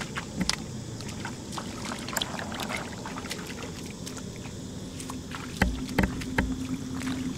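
Water splashing and sloshing, with many small clicks and drips and a couple of louder knocks about two-thirds of the way through.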